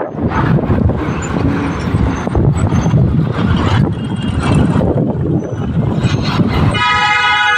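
Road traffic noise heard from a moving vehicle: a steady rumble of engines and tyres. Near the end, a vehicle horn starts sounding one steady, multi-tone note.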